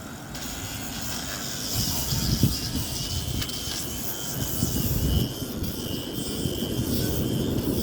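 Jet aircraft flying over: a broad rumble with a thin high whine on top, growing louder over the first couple of seconds and then holding steady.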